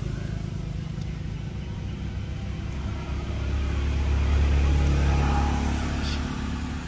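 Low engine rumble of a motor vehicle, swelling to a peak about halfway through and then fading, as if passing by.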